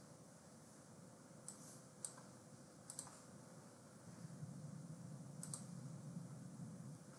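Faint clicking at a computer, four short clicks at uneven intervals, some in quick pairs, over a low room hum that grows louder about four seconds in.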